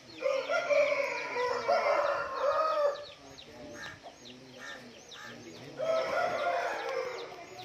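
Gamecock crowing twice: a long crow of about three seconds, then a shorter second crow near the end.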